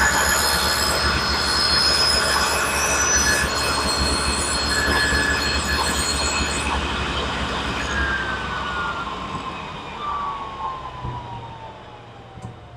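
Table saw running with a high whine through a final dado-cutting pass, then switched off about eight seconds in, its blade coasting down with a steadily falling whine as the noise fades.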